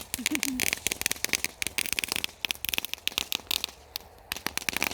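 Small ground firework crackling: a dense, rapid, irregular stream of sharp pops that thins out briefly near the end.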